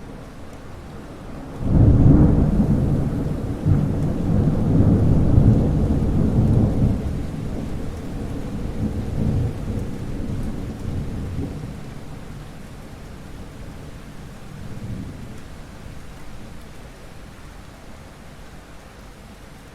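Thunderstorm: steady rain with a thunderclap about two seconds in that breaks into a long, rolling rumble with several swells, then slowly dies away, with one more faint roll later.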